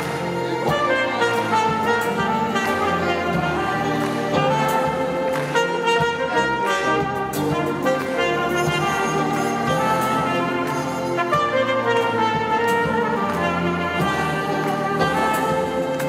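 Solo trumpet playing a melody over a full orchestra with strings, a live performance heard from among the audience.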